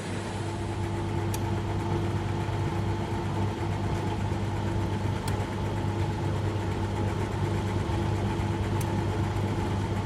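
Dishwasher running: a steady motor hum over an even hiss of spraying water, with three faint ticks.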